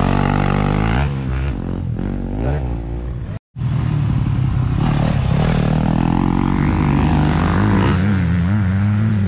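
Dirt bike engines: one running steadily close by while other bikes rev up and down as they ride the jump. The sound cuts out for an instant about three and a half seconds in.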